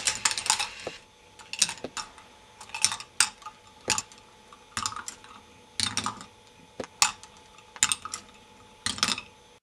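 K'NEX plastic ball machine running: balls clicking and clattering through plastic track and lift parts in irregular bursts every second or so, over a faint steady hum.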